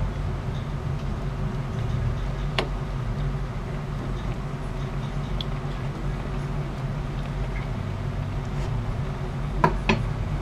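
A spoon stirring thick rice porridge in a cooking pot over a steady low hum, with a sharp clink of the spoon against the pot a few seconds in and two more close together near the end.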